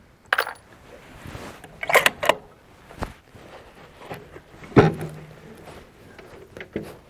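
Metallic clicks and clacks from handling a bolt-action rifle between shots, with the bolt being worked and brass handled. The loudest knock comes a little under five seconds in.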